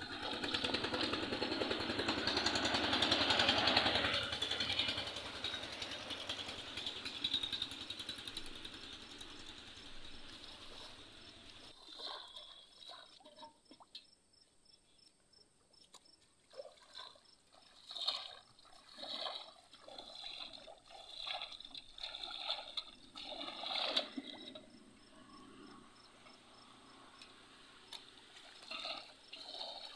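Shallow pond water splashing and sloshing as a person wades and moves a hand through it. The splashing is loudest and continuous in the first few seconds and fades, then comes back as short separate splashes in the second half.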